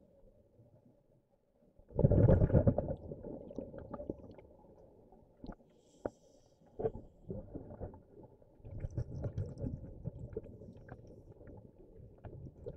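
Scuba diver's breathing heard underwater through the camera housing: a loud, muffled rumble of exhaled bubbles about two seconds in and again about nine seconds in, with a faint high hiss of inhaling between them. Small clicks and knocks are scattered throughout.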